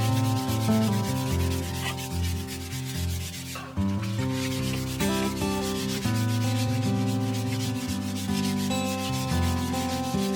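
Hand sanding with sandpaper: quick, even back-and-forth rubbing strokes.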